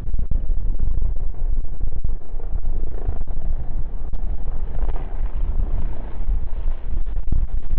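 Strong wind buffeting the phone's microphone, heavily distorted and clipping, over the rumble of jet aircraft engines.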